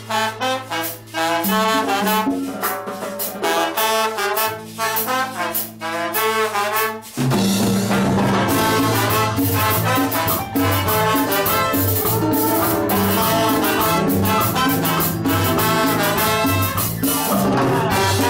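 A live cumbia band with trombone, saxophone and trumpets playing a brass line over percussion. About seven seconds in, the full band comes in with a bass line and a steady, denser beat.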